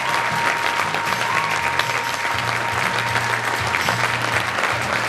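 Audience applauding, with music playing underneath: a steady bass line and a held high note that stops shortly before the end.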